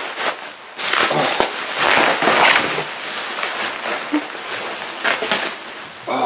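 Plastic bubble wrap crinkling and rustling as it is pulled off a guitar, loudest a second or two in, with sharp crackles through it.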